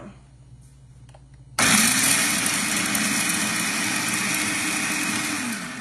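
Electric food processor switched on about a second and a half in. Its motor spins up and runs loud and steady while the blade chops basil, garlic and pine nuts, then winds down just before the end.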